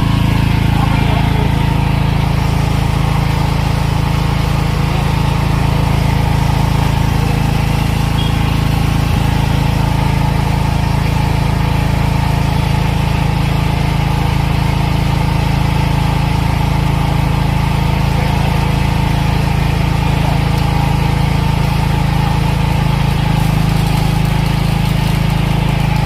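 SPS Premium King 13.5 kVA portable generator's engine running steadily.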